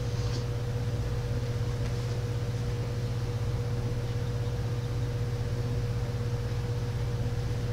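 Steady low hum with a thin, steady higher tone over a faint hiss: room tone in a silent pause, with a faint brief rustle just after the start.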